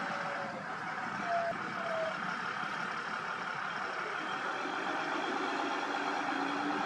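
Heavy diesel construction machinery running steadily, as at a roadworks site, with two brief tones about a second and a half in.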